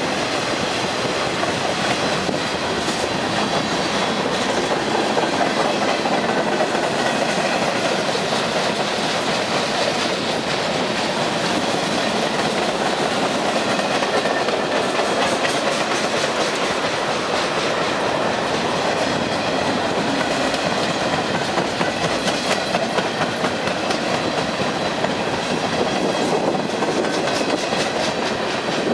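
Freight train cars rolling past at close range: steady noise of steel wheels on the rails, with repeated clicks as the wheels pass over rail joints.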